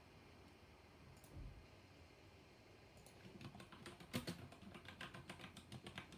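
Black-switch mechanical keyboard being typed on: a quick run of keystroke clicks starts about halfway through, after a soft low thump about a second in.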